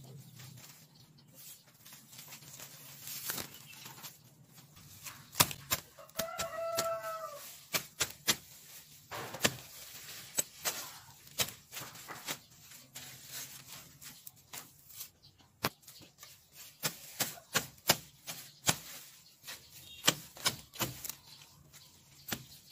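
Weeds and grass being chopped and pulled out by hand, heard as many irregular sharp snaps and chops. A chicken calls once, drawn out, about six seconds in.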